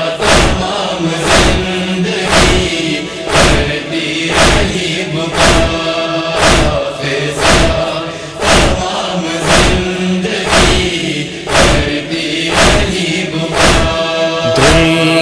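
Noha interlude: matam, hands beating on the chest in a steady rhythm of about one stroke a second, over a chorus of voices holding the tune.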